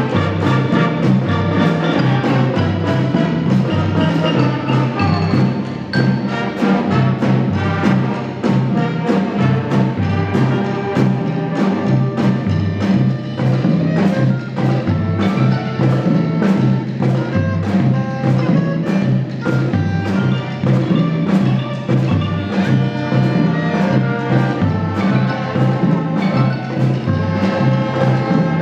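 Music with a steady beat and a bass line stepping from note to note.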